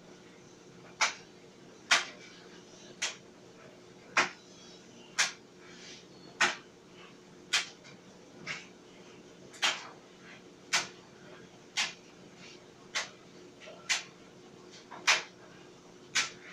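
Clothes dryer running with a steady hum and a sharp knock about once a second, as something tumbling in the drum strikes it on each turn.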